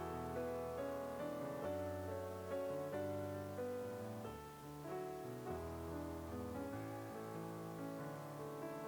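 Background music: soft piano-like keyboard chords and notes that change every second or so.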